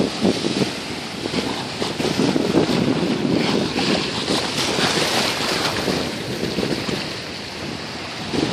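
Small waves breaking and washing up on a sandy shore, with wind buffeting the microphone.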